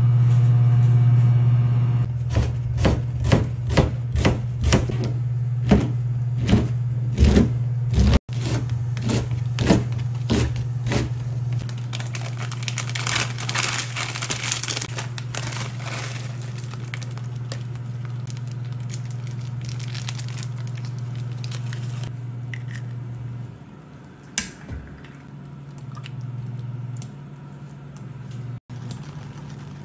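Kitchen cooking sounds over a steady low electric hum from an induction cooktop: first a run of regular knocks, roughly two a second, like a knife chopping on a board, then a stretch of hissing as the water in the pot comes to the boil. The hum drops away near the end.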